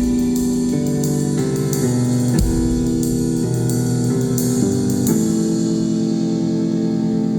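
A live rock band playing, led by sustained keyboard chords that change about every second.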